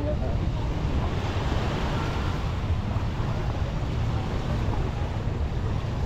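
Wind buffeting the microphone over the steady wash of surf on a sandy beach, a continuous rough rushing with gusty low rumble.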